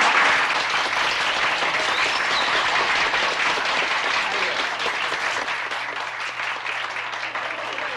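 Audience applauding: steady, dense clapping that eases slightly near the end.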